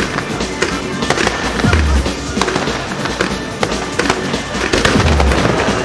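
Fireworks display with continuous crackling and popping, and two deep shell-burst booms, about two seconds in and near the end.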